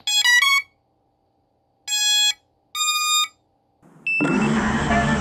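Startup beep tune of an FPV quadcopter's ESCs, sounded through its motors: a quick rising run of short tones, then two longer beeps about a second apart, the first lower and the second higher, the signal that the ESCs are powered and ready to arm. Music starts near the end.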